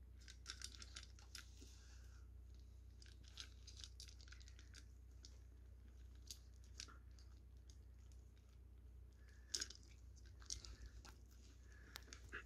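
Beagle puppy eating dry kibble from a stainless steel bowl: faint crunching in short clusters with pauses between, the loudest crunch a little over nine seconds in.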